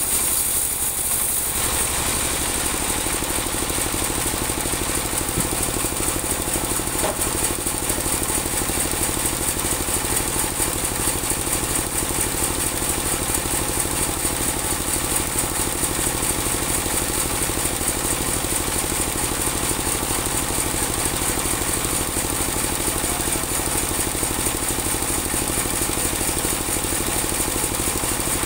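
Engine-driven portable band sawmill running steadily while its band saw blade cuts lengthwise through a large teak log, the engine's even drone under a constant high hiss of the cut.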